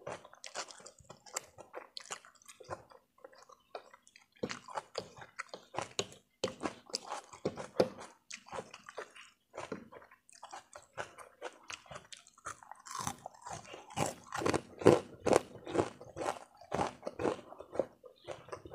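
Close-miked chewing of a mouthful of spicy instant noodles: a quick, uneven run of soft wet clicks and mouth sounds, busiest and loudest about two-thirds of the way through.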